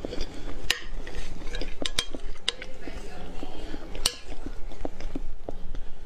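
Metal spoon clinking and scraping against a plate while cutting into a chocolate mousse cake, with several sharp clinks; the loudest comes about four seconds in.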